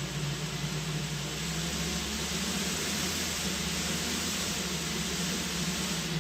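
The brushless motors and propellers of a rebuilt Hubsan H501S quadcopter running at raised throttle: a steady whir with a low hum and rushing prop wash, growing a little louder about a second and a half in. The drone is straining to take off.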